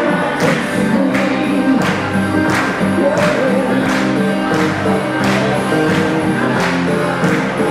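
Country-style dance music with a singer and a steady beat of about two drum hits a second, played over a sound system.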